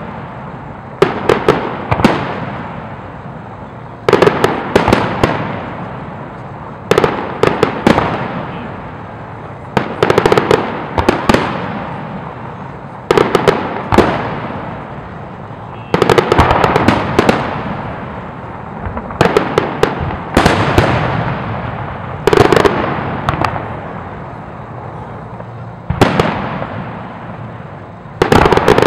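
Aerial firework shells bursting in quick groups of sharp bangs every two to three seconds, each group fading in a long echo.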